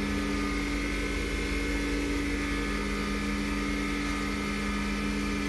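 Wood lathe's motor running steadily at about 3,000 RPM, a constant hum with no load.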